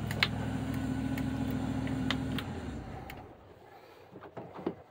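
A 1987 Bayliner 3218's Chevy gasoline inboard engines idling steadily, then shut off about two and a half seconds in and running down to quiet. A few light clicks follow near the end.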